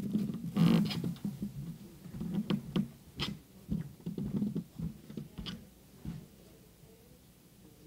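Handling noise from paper diploma folders near a desk microphone: scattered rustles and several sharp knocks, the loudest a little after the start, fading out over the last couple of seconds.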